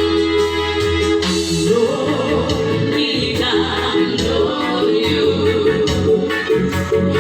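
Song with held keyboard chords, joined by a singing voice about two seconds in.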